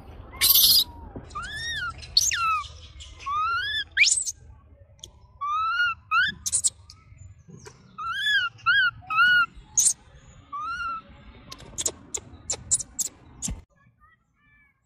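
Baby macaque calling: a string of short, high coos that rise and fall in pitch, with a loud burst of noise near the start and a run of sharp clicks near the end, where the sound cuts off.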